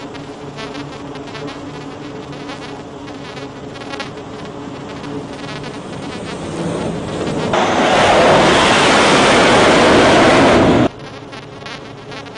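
Twin turboprop engines and propellers of a C-2 Greyhound carrier aircraft on approach and landing: a steady buzzing drone that grows louder, then a loud rush of engine and propeller noise for about three seconds as it comes onto the deck, ending abruptly.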